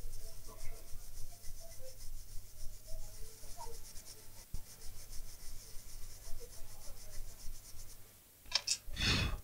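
Cotton swab scrubbing the freshly soldered area of an iPhone 6s logic board to clean it: a fast, steady run of fine scratchy rubbing strokes. Near the end it stops, followed by a couple of sharp clicks and a short louder clatter.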